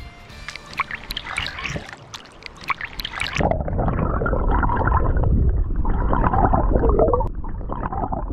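Water splashing and dripping at the surface of a clear, shallow river as a trout is released by hand. About three and a half seconds in, the microphone goes under the surface, and the sound turns to a louder, muffled underwater gurgle and rumble of current and bubbles with the high sounds cut off.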